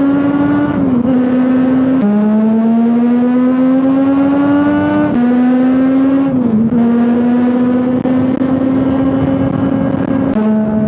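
Triumph Daytona 675 inline three-cylinder engine running under load while riding. Its pitch climbs slowly as it pulls, then drops abruptly three times, each drop marked by a brief click, as at upshifts.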